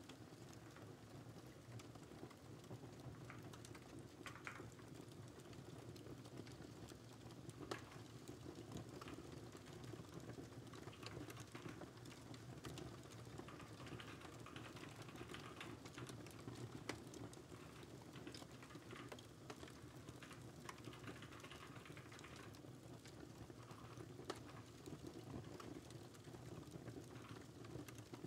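Quiet computer-keyboard typing in irregular runs of taps, over the steady low crackle of a fireplace fire.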